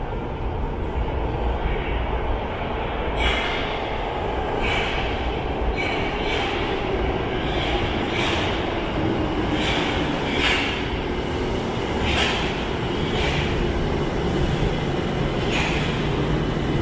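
Tokyo Metro 02 series subway train arriving and braking into the platform: a steady low rumble, with short high-pitched squeals from the wheels and brakes starting about three seconds in and recurring every second or so. A faint falling whine comes from the drive as the train slows.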